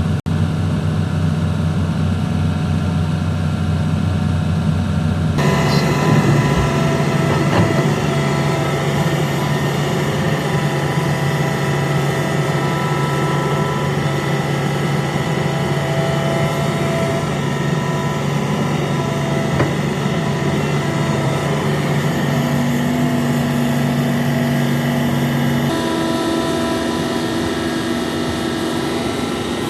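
Large hydraulic excavator's diesel engine running steadily under working load, a continuous hum of several steady tones; the sound changes abruptly about five seconds in and again near the end.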